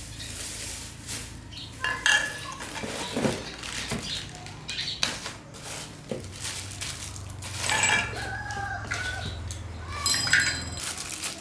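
Chickens clucking and a rooster crowing, with scattered knocks and a low hum that stops near the end.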